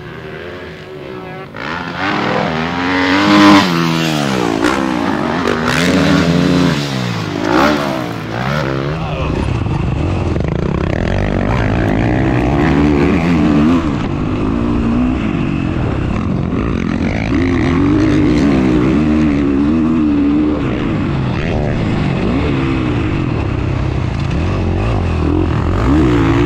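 Motocross dirt bike engine revving hard, rising and falling again and again as the rider works the throttle and gears, heard close from the bike itself. It is quieter for the first couple of seconds, then loud.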